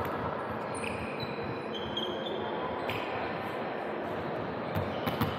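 Volleyball game in a large gym: sneakers squeak briefly on the hardwood court over a steady hall background, and a few sharp thumps of the ball being played or bouncing come near the end.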